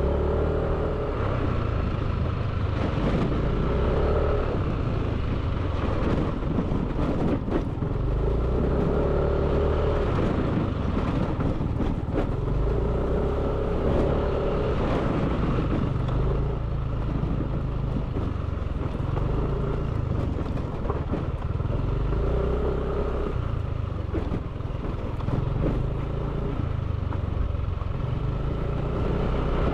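Steady motor noise over a low rumble, its tone swelling and fading every few seconds.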